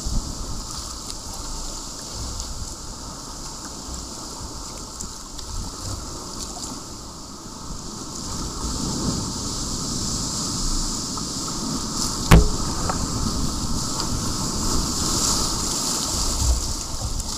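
Wind buffeting the microphone over open water, with gusty low rumble and a steady wash of water. One sharp knock about twelve seconds in.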